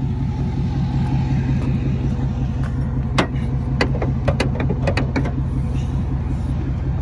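Steady low rumble of an idling engine. Several sharp clicks and knocks come between about three and five seconds in, as a car's hood is released and lifted.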